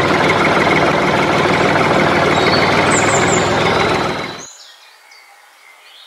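Tractor engine running steadily at idle. It fades out about four seconds in, leaving faint bird chirps.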